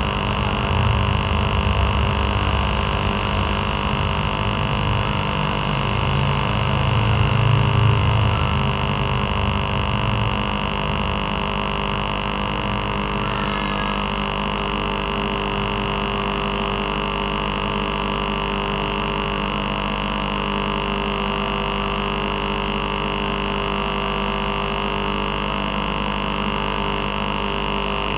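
Aquarium air pump (aerator) buzzing steadily. The low buzz is heavier for the first ten seconds or so, then settles into an even hum.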